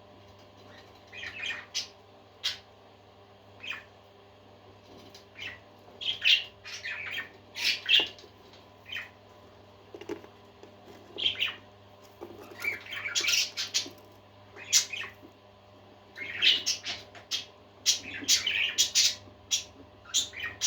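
Parakeets chirping and squawking: many short, high calls coming in irregular clusters, over a faint steady hum.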